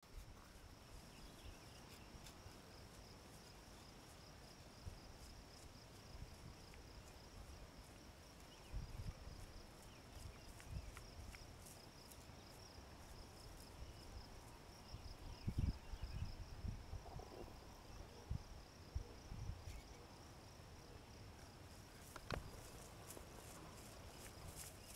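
Insects trilling steadily in a grass field, a high pulsing buzz that never stops, with scattered dull low thumps through the middle stretch.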